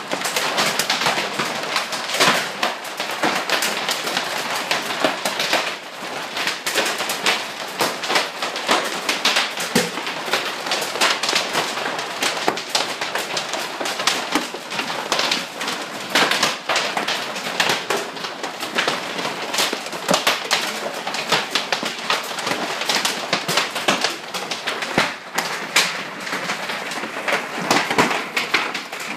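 Hail hitting the roof, heard from inside the attic under the roof deck: a dense, unbroken clatter of sharp impacts that keeps up throughout.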